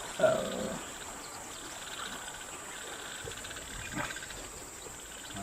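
Steady high-pitched chirring of insects, likely crickets, with a short louder sound just after the start.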